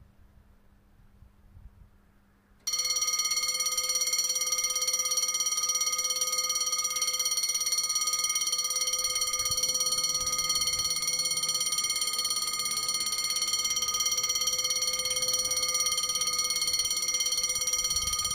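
Electric level-crossing warning bell ringing continuously, starting about three seconds in and stopping abruptly near the end. It is the crossing closing: the red road lights are lit and the barrier is lowering for an approaching train.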